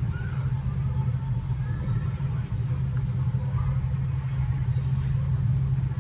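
A steady low hum, with the faint, repeated scratch of a graphite pencil shading on paper.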